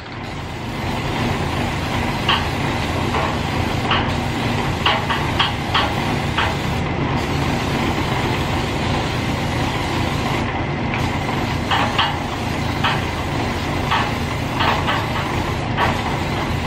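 Aerosol spray can of glossy clear coat hissing in passes over a painted motorcycle wheel, over a steady low hum. Short sharp clicks are scattered through it.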